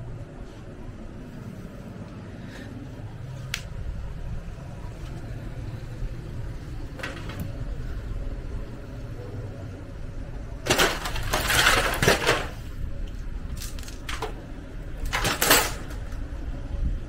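Glass and panel sheets from a smashed flat-screen TV clattering and rattling as they are handled, with a few light clicks at first and the loudest clatter about two thirds of the way in, then two shorter rattles.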